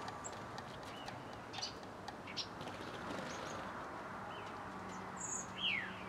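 Small garden birds calling: scattered short chirps and ticks over a faint steady hiss, with a louder downward-sliding call near the end.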